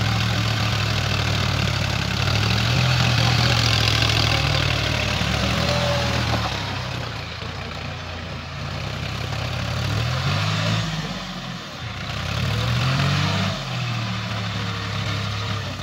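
Diesel tractor engine running steadily under load while pulling a rotavator through wet soil, with the rushing noise of the tiller working. Twice in the second half the engine speed sweeps up and back down.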